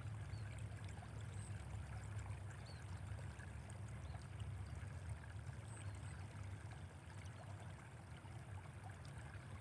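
Faint, steady trickle of water flowing in a small irrigation canal, with a steady low rumble underneath.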